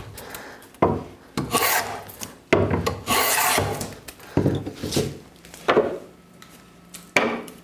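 Hand plane shaving the bevelled edge of a wooden slat in about six separate strokes, the longest about a second. The strokes are taking down the high point of the bevel.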